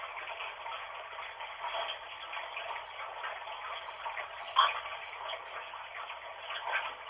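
Bath water running from a tap: a steady, crackly rushing sound, thin and narrow as if filtered, with a sharper louder click about four and a half seconds in.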